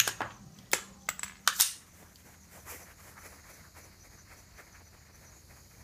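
A handful of sharp clicks and knocks in the first two seconds, like equipment being handled, then only a faint, steady, high insect buzz.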